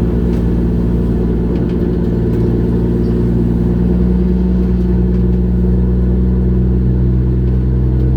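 Fishing trawler's engine running steadily: a loud, low, even drone.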